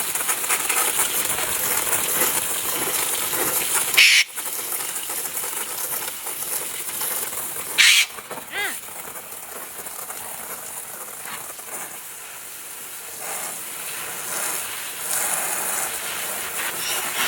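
Eclectus parrot giving two short, harsh screeches, one about four seconds in and one about eight seconds in, followed by a brief warbling call. A steady hiss runs underneath.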